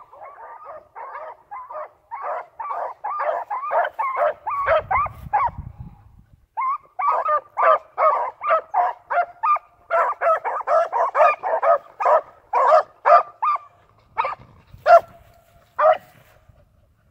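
Dog barking over and over, about two to three barks a second, with a short pause about six seconds in and then a few last single barks near the end.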